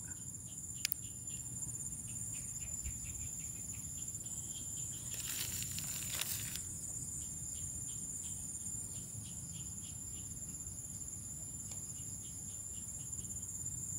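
Crickets and other insects chirring steadily in a high, continuous drone, with a brief rustling noise about five seconds in.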